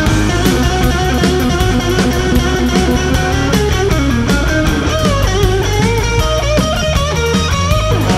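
Rock music: electric guitar riffs over a steady drum beat, with bending lead notes in the second half.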